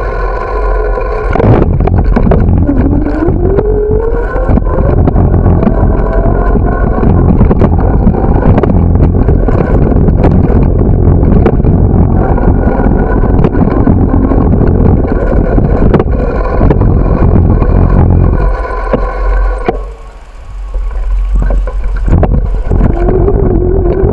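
Wind rumble and rattling from a camera riding on a moving bicycle over pavement, with many small knocks. A rising whine comes in about two seconds in and again near the end, and the noise drops briefly a few seconds before the end.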